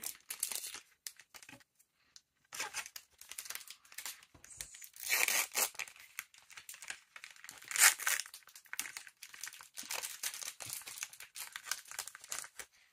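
A Lorcana booster pack's wrapper being torn open and crinkled by hand as the cards are worked out, with one loud sharp rip about eight seconds in.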